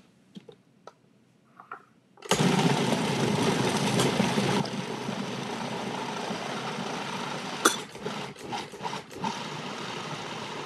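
Electric food processor switched on after a few faint clicks from the lid, its motor and blade running steadily to blend ground salmon with eggs, oil and sugar. It is loudest for the first couple of seconds, then runs on quieter and stops near the end.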